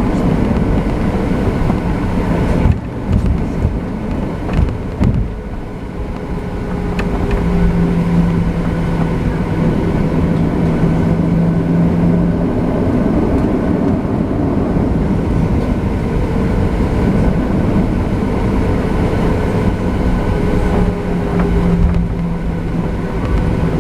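Boeing 737-700 cabin noise: its CFM56 jet engines and the rumble of the wheels rolling on the pavement, heard from a window seat. A few thumps come about three to five seconds in, and the noise grows louder about six seconds in and stays steady with a low hum.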